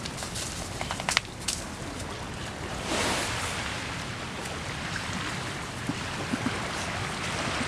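Steady wash of surf and wind along a beach, swelling about three seconds in, with a few sharp clicks about a second in.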